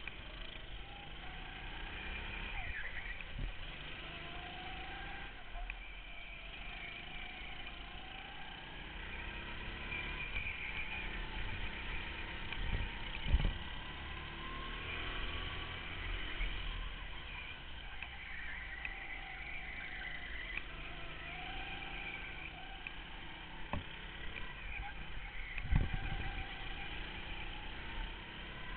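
Go-kart engines running at racing speed, heard from on board. The engine pitch rises and falls as the throttle opens and lifts through the corners, with two short knocks partway through.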